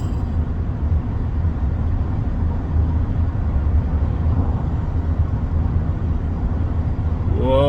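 Steady low rumble of a moving car heard from inside its cabin: engine and tyre road noise.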